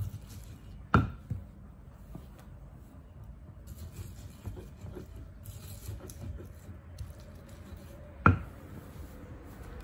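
Stone pestle working chopped cucumber and tomato in a stone mortar: soft repeated taps and squishing, with two sharp knocks of the pestle against the mortar, about a second in and again near the end.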